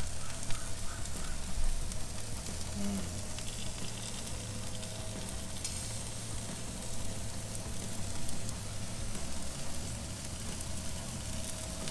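Pork tenderloins sizzling steadily on the hot grates of a charcoal grill, over a faint steady low hum.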